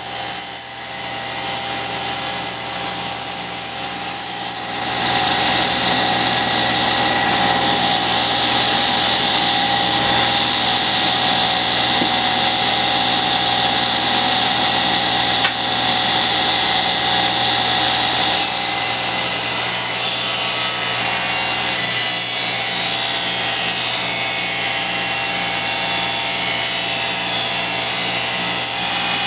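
Cabinet table saw running and ripping wooden boards along the fence, a loud steady machine noise. Its tone changes about four seconds in, when a high whine joins, and again about two-thirds through, when that whine drops away.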